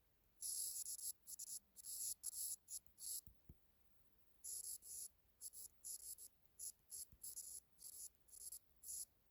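Light scratching in short, irregular strokes, about fifteen of them, with brief pauses between.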